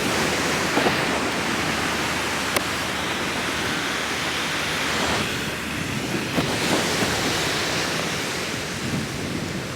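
Ocean surf washing in steadily, with wind on the microphone; the wash eases for a moment about halfway through and then builds again.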